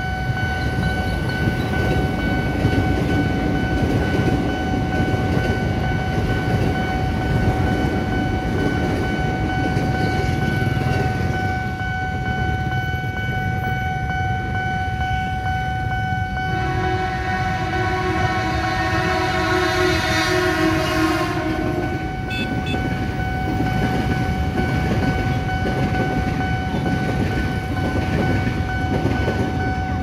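KRL Commuter Line electric train passing over a level crossing, a steady low rumble, with the crossing's warning signal sounding a steady electronic tone throughout. About 17 seconds in, a train's horn sounds one long blast of about five seconds.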